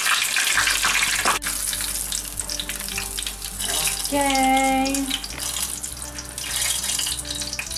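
Batter-coated courgette flowers with mozzarella deep-frying in hot oil, with a steady sizzle.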